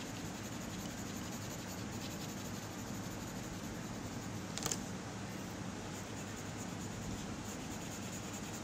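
Pink coloured pencil scratching steadily on paper as it shades in an area with quick back-and-forth strokes. A single short sharp tick comes about halfway through.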